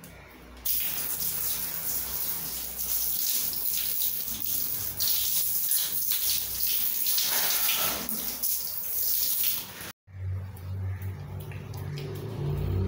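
Shower spray hissing steadily onto a wet cat and tiled floor, with the cat yowling once about seven seconds in. The spray cuts off suddenly at about ten seconds, leaving a low hum.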